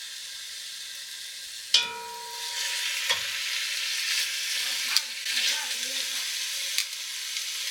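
Chicken drumsticks sizzling as they brown in hot oil in a Dutch oven, a steady hiss that grows louder a couple of seconds in. A sharp metallic clink with a short ring comes about two seconds in, followed by a knock about a second later.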